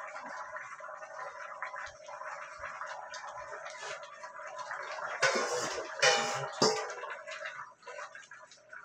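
Stew chicken bubbling in a pan of gravy on the stove. A little past halfway there are two louder splashing scrapes as sliced bell peppers are tipped in from a bowl.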